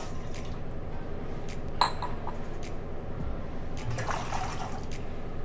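Water pouring in a steady stream into a metal pan, splashing as it fills the bottom. A short ringing clink about two seconds in.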